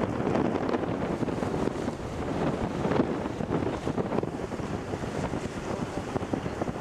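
Wind buffeting the microphone on the deck of a moving tour boat, over a steady rush of sea water along the hull.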